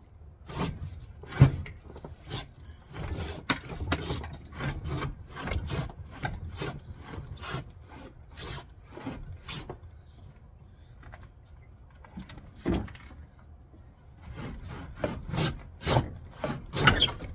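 A propane RV fridge being pulled out of its cabinet: irregular scraping and knocking as it rubs and bumps its way out. One sharp knock comes about a second and a half in, and there is a quieter lull past the middle before a last run of knocks.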